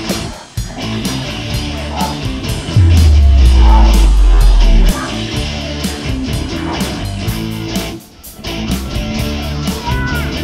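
Rock music with guitar and a steady beat as the backing track. A loud, deep bass note holds for about two seconds near the middle, and the music dips briefly about eight seconds in.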